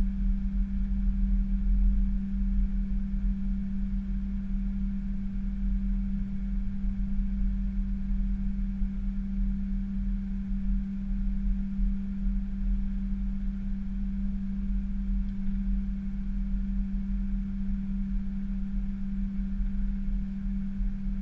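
Steady airliner cockpit noise with the jet engines running as the aircraft rolls along the runway: a deep rumble under a constant hum, with no change in pitch.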